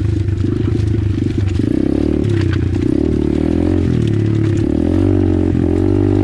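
Apollo RFZ 125cc pit bike's single-cylinder four-stroke engine running while riding over loose rock, its pitch dropping and rising several times as the throttle is rolled off and on. Short clattering knocks from stones and the bike's chassis come through with it.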